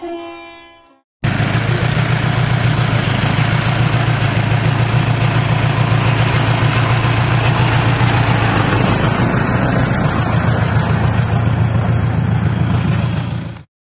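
Open-top jeep's engine running steadily with a low, slightly pulsing note. It starts abruptly about a second in and cuts off abruptly just before the end.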